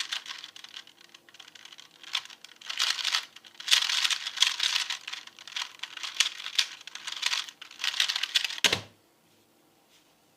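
A 2x2 Rubik's cube being turned fast: rapid clicking and clattering of plastic layers, coming in spurts. It ends in a single thump near the end, followed by quiet.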